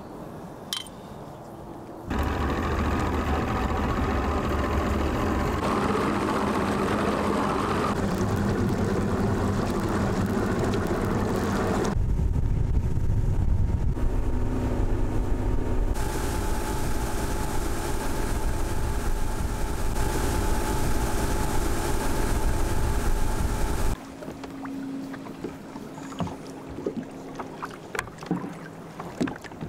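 Bass boat underway on its Mercury 150 outboard: the engine runs steadily with wind and water noise, and the sound changes abruptly a few times. About 24 s in it cuts off, leaving quieter sounds with faint clicks.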